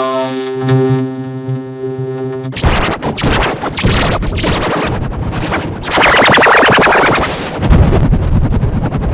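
Heavily distorted, effects-processed audio: a held buzzy tone with many overtones for about two and a half seconds, then an abrupt switch to loud, harsh crackling noise.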